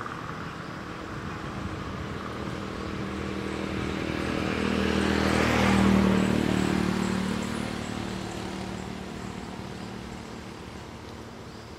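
A motor vehicle passes by, its engine noise growing louder to a peak about six seconds in and then fading away.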